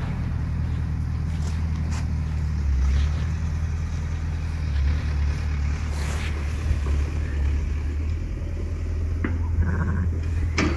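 A steady low motor rumble runs throughout, with a few faint clicks and a brief faint sound near the end.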